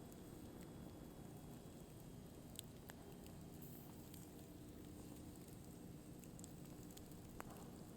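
Firewood burning: a quiet, steady low rumble of flames with a few sharp pops of crackling wood, one a little under three seconds in and the clearest near the end.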